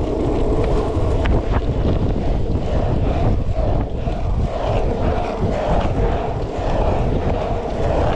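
Surfskate wheels rolling and rumbling on asphalt, mixed with wind buffeting the microphone as the board is pumped along.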